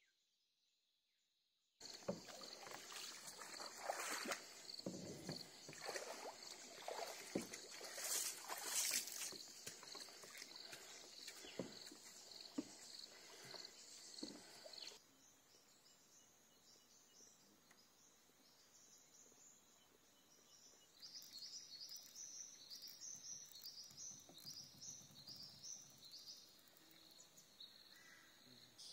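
Kayak paddle strokes dipping and splashing in calm river water, with knocks of the paddle, over a steady high insect buzz. About halfway the splashing stops, and later a rapid pulsing insect chirp comes in.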